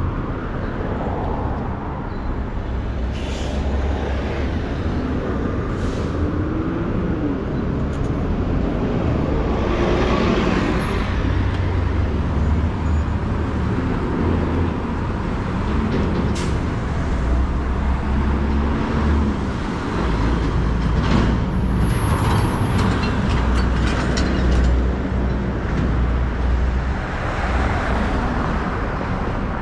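City street traffic: engines of passing vehicles, including heavy ones, making a steady low rumble, with a few brief hisses.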